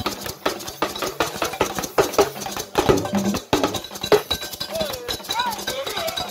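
Festival drumming: a run of quick, sharp drum strokes, with tones sliding up and down in pitch in the second half.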